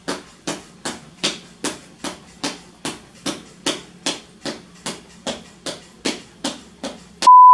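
A steady beat of sharp clap-like strikes, about two and a half a second, over a faint low hum. Near the end a steady high electronic beep cuts in.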